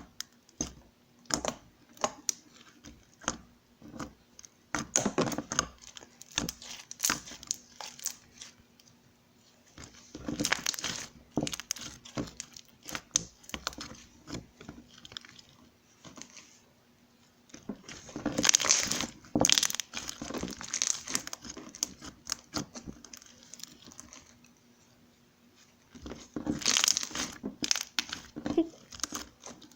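Homemade glue slime, activated with Tide, being squished and stretched by hand: irregular crackling clicks and pops, coming in louder bursts a few times.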